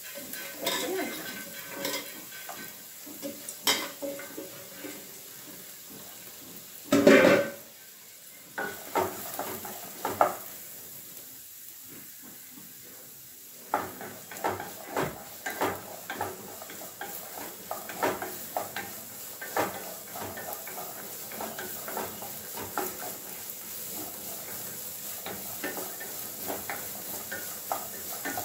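Chopped amaranth stems sizzling in a non-stick wok, stirred with a wooden spatula that clicks and scrapes against the pan, most busily in the second half. One loud knock about seven seconds in.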